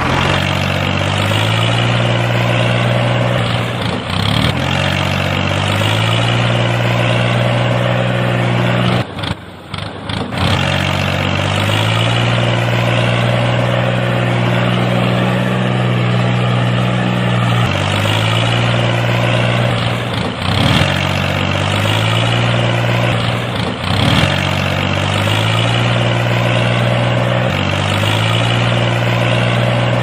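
Tractor engine sound effect, running steadily, its pitch jumping up and down every few seconds. It briefly drops away about nine seconds in.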